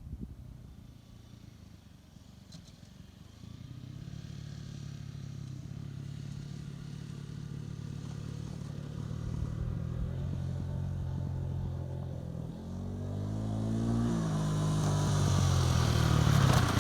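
Honda CBR125's single-cylinder four-stroke engine running, faint at first and growing steadily louder, with the engine note shifting up and down about two-thirds of the way through.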